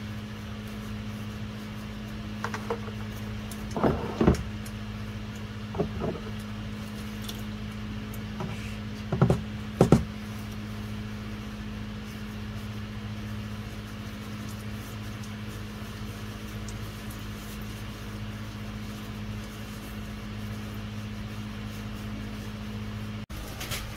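Transmission fluid draining in a thin stream from the transmission into a plastic drain pan, over a steady low hum. A few light knocks about 4, 6 and 10 seconds in.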